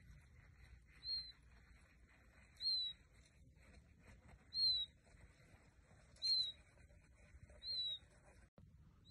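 A baby chick peeping five times, single short high peeps about a second and a half apart.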